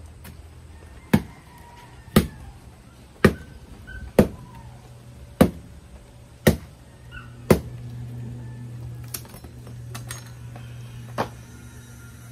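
A bolo knife chopping into dry firewood held upright on the ground, splitting it: seven sharp strikes about a second apart, then a few lighter knocks.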